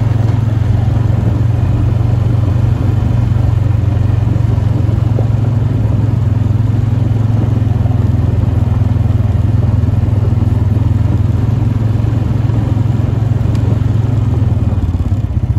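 An engine running loudly and steadily at one constant speed, a low even drone close to the microphone.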